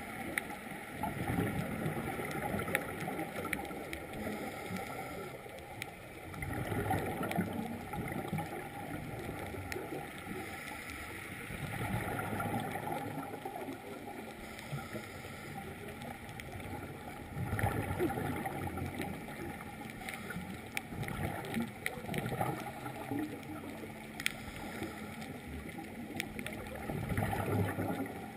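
Scuba diver breathing through a regulator, heard through an underwater camera housing: exhaled bubbles gurgle in swells about every five seconds over a steady underwater hiss. A faint steady hum joins about two-thirds of the way in.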